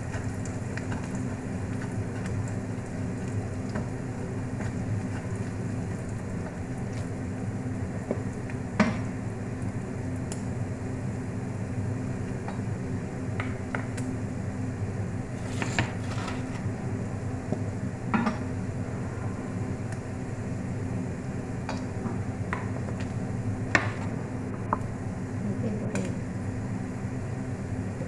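Kitchen cooking sounds: a steady low hum with a few scattered clinks of a utensil against a pot.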